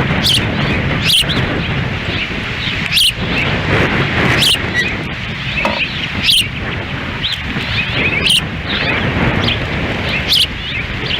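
Ospreys at the nest giving short, high chirping calls, repeated about every one and a half to two seconds, over steady heavy wind noise on the microphone.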